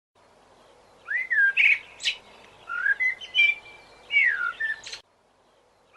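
A songbird chirping and whistling in short phrases of rising and falling notes. It cuts off abruptly to dead silence about a second before the end.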